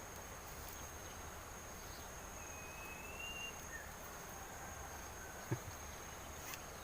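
Insects, crickets or the like, giving one steady high trill over a faint outdoor hiss. A short high whistle comes about two and a half seconds in, and a soft knock just after five seconds.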